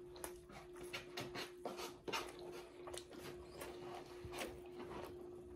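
Quiet eating sounds: a scatter of short mouth clicks and smacks from chewing chicken off the bone, over a faint steady hum.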